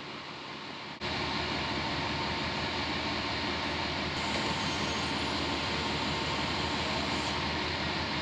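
Utility boom truck's engine running steadily while its boom holds the pole; the sound jumps louder about a second in and then stays even.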